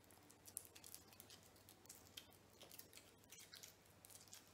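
Faint crinkling of a foil wrapper being peeled off a small Kinder chocolate by hand: a scattered run of soft crackles and ticks.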